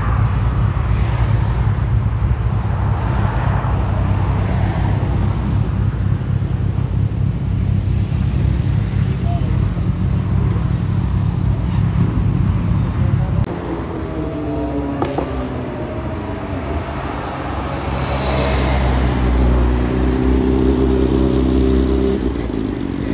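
Highway traffic: a steady heavy low rumble of passing vehicles that changes abruptly about 13 seconds in. After that, a passing engine sweeps in pitch, followed by a steady engine drone near the end.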